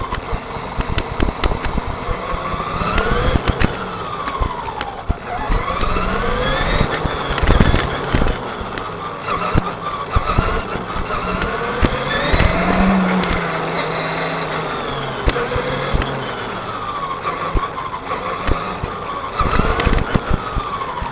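Electric motor and gear whine of a Traxxas Telluride 4x4 RC truck driving on asphalt, the pitch rising and falling over and over with the throttle. Tyre noise runs under it, with many sharp clicks and rattles from bumps, all picked up by a camera mounted on the truck.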